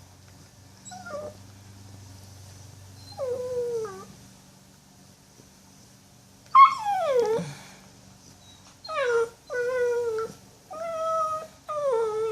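Puppy whimpering: a series of short, high whines that fall in pitch. The first two are faint, the loudest comes about six and a half seconds in, and four more follow close together near the end.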